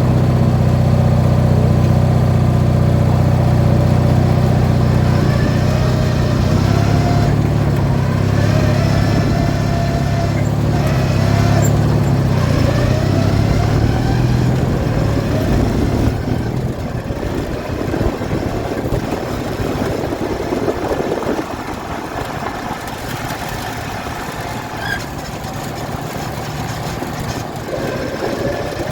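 18 hp Briggs & Stratton twin-cylinder engine of a modified Craftsman lawn mower running steadily, then fainter and rougher from about halfway.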